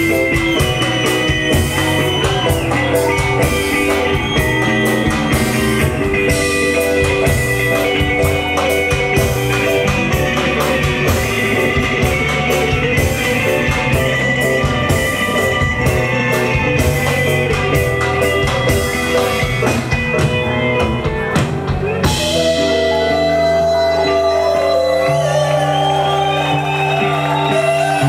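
Live MPB band playing: drum kit, bass, guitar and keyboard together with a driving beat. About 22 seconds in, the drums drop out and held keyboard and guitar chords ring on over the bass.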